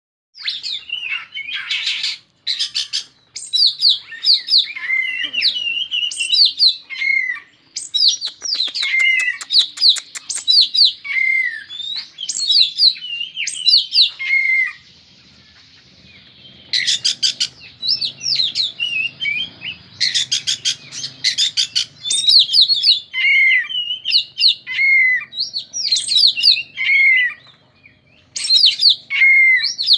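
An oriental magpie-robin (kacer) singing a varied song of clear whistled phrases mixed with rapid trills, pausing briefly about halfway through.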